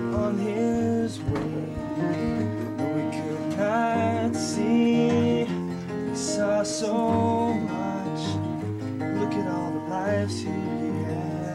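Acoustic guitar being played, a run of strummed and picked chords with notes changing every second or so.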